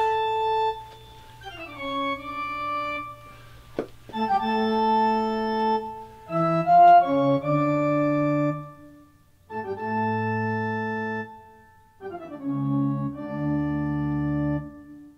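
Organ playing slow, held chords in short phrases, each chord sounding for a second or two before breaking off and the next one starting. There is a sharp click right at the start and another about four seconds in.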